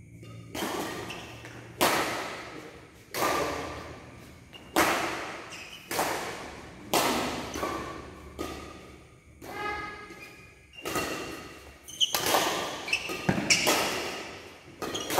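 Badminton rackets striking a shuttlecock in a doubles rally: sharp hits about once a second, coming faster near the end, each echoing through the hall.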